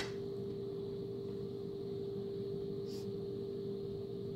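A steady background hum at one pitch, with a single small click at the start and a faint tick about three seconds in, as a small steel AR-15 extractor and its spring are handled.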